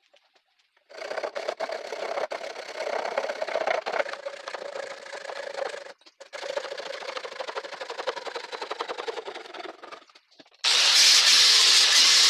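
A small electric power tool runs with a steady pitch and a rough, scraping edge, cutting out for a moment about six seconds in and stopping near ten seconds. Just before the end a much louder steady hiss starts.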